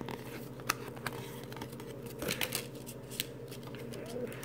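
Pokémon trading cards being handled and sorted in the hand: a few soft clicks and snaps of card stock, over a steady low hum.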